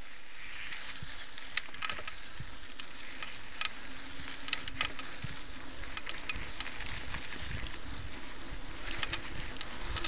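Mountain bike rolling fast along a dirt singletrack: steady tyre noise on the trail with irregular clicks and rattles from the bike, and wind rumble on the microphone growing in the second half.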